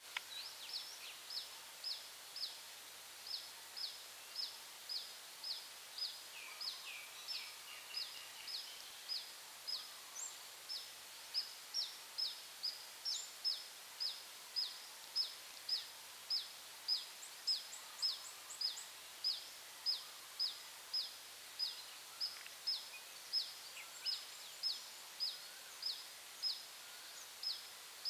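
A bird repeating a short, high, falling chirp at an even pace of about two a second, with other birds calling faintly now and then.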